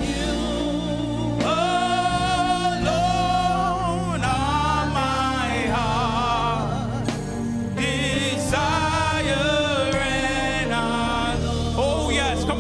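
Gospel worship song: voices singing a slow melody with long, wavering held notes over a steady instrumental backing.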